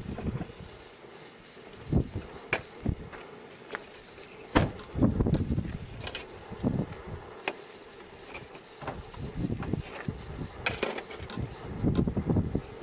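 Wind gusting on the microphone, with scattered light clicks and knocks from things handled on a camp table.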